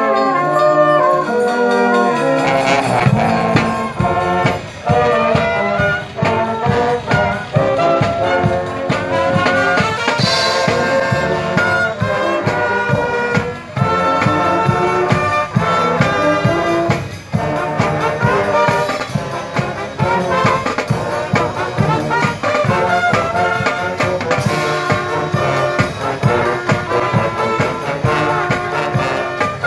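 Marching band playing: trumpets and trombones carry a tune, and drums join about two and a half seconds in.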